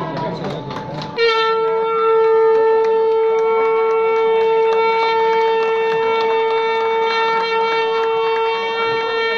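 A wind instrument blown on one long steady note, starting abruptly about a second in and held without a break.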